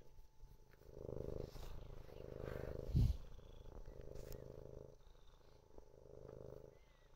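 Domestic tabby-and-white cat purring, the purr swelling and fading with each breath, while its back is scratched. A short low thump about three seconds in is the loudest sound.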